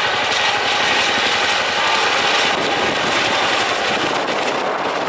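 Boeing CH-47 Chinook tandem-rotor helicopter flying low past: loud, steady rotor beat and engine noise, easing a little near the end as it moves away.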